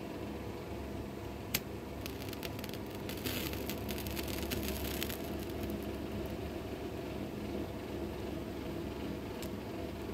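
A lighter being struck: a single sharp click, then a run of rapid clicks with a hiss of gas for a few seconds as it catches, and one more click near the end. A steady low hum runs underneath.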